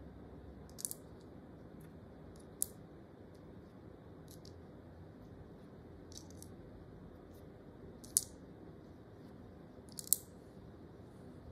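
Small wooden stamp-game tiles clacking against one another and the tabletop as they are picked up and gathered into a hand. An uneven scatter of sharp clicks, the loudest about a second in, near three seconds, and around eight and ten seconds in.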